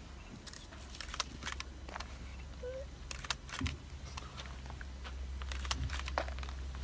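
Camera shutters clicking in scattered quick bursts from several cameras, over a low steady hum.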